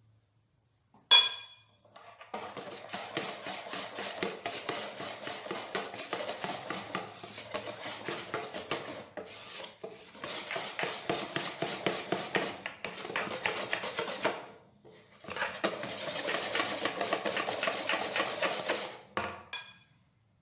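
Hand wire whisk beating thick chocolate cake batter in a bowl as flour is worked in: rapid scraping strokes against the bowl in two long runs, with a short pause about fifteen seconds in. A single sharp clink about a second in is the loudest moment.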